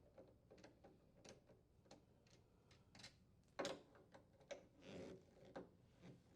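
Faint, irregular clicks and light taps of a nut driver working the metal mounting screws of a refrigerator's lower freezer door hinge, with one slightly louder knock a little past halfway.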